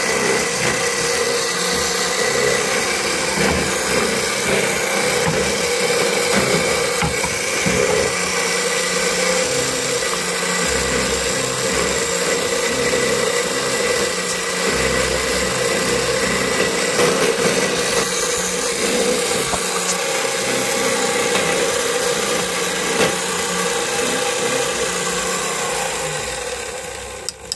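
Vertical key-cutting machine running steadily, its motor and cutter milling a blank key as it copies the clamped original. The noise falls away near the end.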